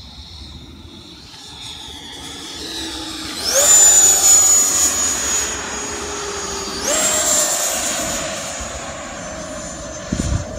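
Electric ducted-fan model jet whine: the fan runs up sharply into a loud, high, steady whine about a third of the way in, eases, then runs up again about two-thirds in. A few low thumps near the end.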